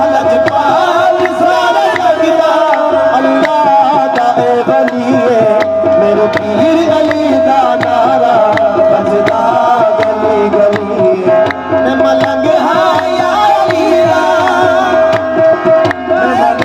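Live qawwali: men singing over harmoniums holding a steady drone note, with a beat of sharp hand claps and percussion strokes.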